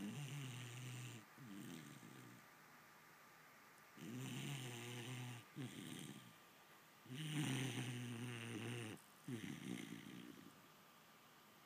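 Vizsla puppy snoring in its sleep: three slow breaths, each a longer, louder snore followed by a shorter, softer one, with quiet pauses of a second or two between breaths.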